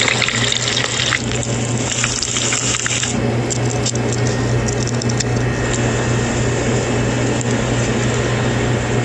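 Liquid being poured into a hot cooking pan, a hissing splash that stops abruptly about three seconds in. Scattered crackling follows over a steady low hum.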